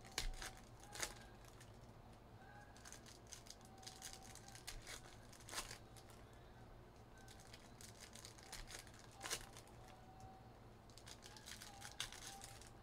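Foil trading-card packs being torn open and crinkled by hand: quiet bursts of crackling with a few sharp clicks scattered through.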